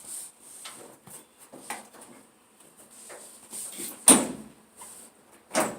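Scattered clicks and knocks as parts are taken off a clothes dryer, with a sharp knock about four seconds in and another just before the end.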